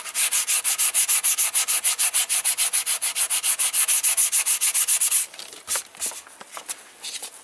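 Sandpaper rubbed by hand in quick, even strokes, about seven or eight a second, over a primed plastic motorcycle fairing panel. This is light sanding to flat off a black guide coat and key the primer for paint. The strokes stop about five seconds in, giving way to quieter, irregular scuffs as the panel is handled.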